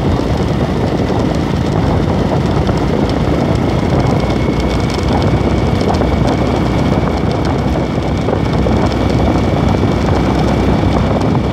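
Motorcycle riding at a steady speed: the engine running under a loud, even rush of wind and road noise, with a faint steady whine above it.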